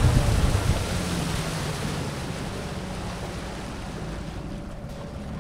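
Hangkai outboard motor running as the inflatable boat moves along, with wind on the microphone and water rushing past the hull; the whole sound gradually gets quieter.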